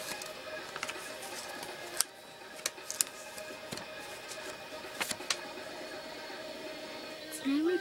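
Quiet background music with several sharp clicks scattered through it. A female voice starts singing just before the end.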